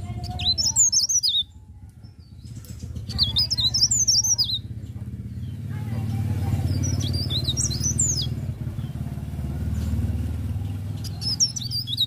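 A cikrak daun (mountain leaf warbler) singing in four short bursts of quick, high, up-and-down notes a few seconds apart. A steady low rumble runs underneath and grows louder in the middle.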